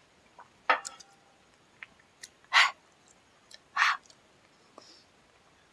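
A man's three short, sharp breathy exhalations just after swallowing a glass of whisky, the second one loudest, with a few faint clicks between them.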